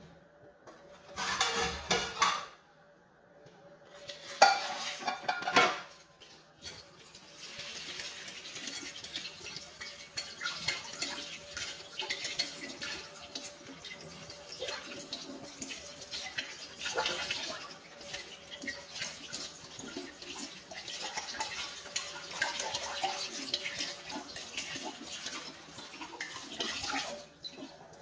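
Tap water running at a kitchen sink while leafy greens are rinsed by hand, with small clinks of dishes throughout. Two brief loud clatters of dishes in the first six seconds, before the water starts.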